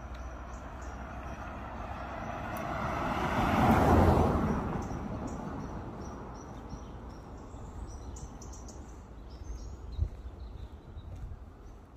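A car drives past, its tyre and engine noise swelling to a peak about four seconds in and then fading away. Small birds chirp throughout, and there is a single short knock near the end.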